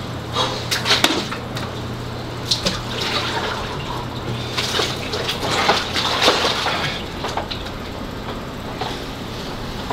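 Water sloshing and splashing in a cooler-built cold-plunge tub as a man steps in and lowers himself into it, settling down after about seven seconds. A steady low hum runs underneath.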